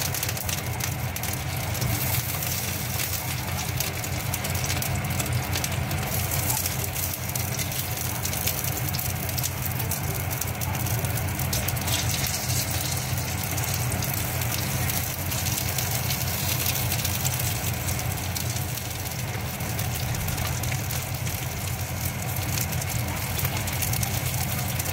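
Shrimp and ginger frying in hot oil: a steady sizzle over a constant low hum.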